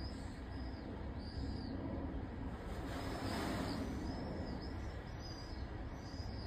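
Jet airliner on final approach overhead: a steady low rumble of distant engines, with short high chirps repeating over it.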